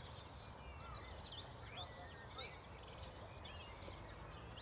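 Faint birdsong, many short chirps and whistles from several birds, over the low steady rumble of distant road traffic on a bypass.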